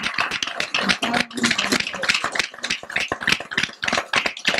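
Audience applauding: many hands clapping in dense, irregular claps.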